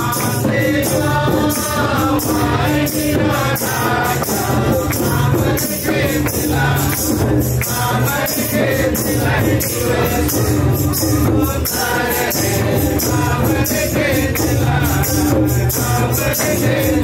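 A group of singers sing a Sadri Christian welcome hymn, with hand percussion keeping a steady, quick beat of about three strikes a second and a low steady accompaniment underneath.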